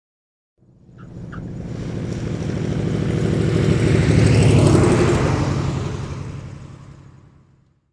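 Propeller engine passing by: it swells for about four seconds to a peak, then fades away over about three.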